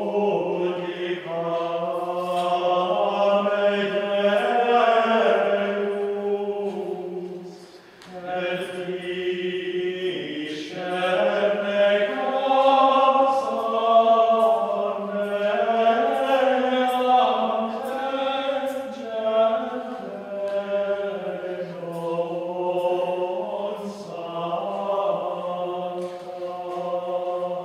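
A choir singing Gregorian chant in Latin at a High Mass, in long, flowing sung phrases with a short break about eight seconds in.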